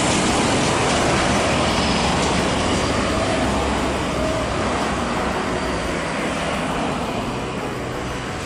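Heavy diesel truck engine running as the truck passes close by, loudest at first and slowly fading as it moves off, over general road traffic.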